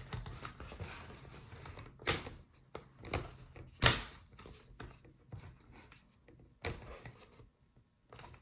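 Plastic retaining clips of a laptop's rear cover snapping loose as the cover is wiggled and pried off: a few sharp clicks, the loudest about two and four seconds in, with softer handling noise between.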